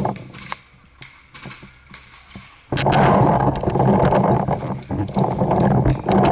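Paintball markers firing: scattered sharp pops and clicks. About three seconds in, a loud close rustling, scuffling noise sets in and runs on under the shots.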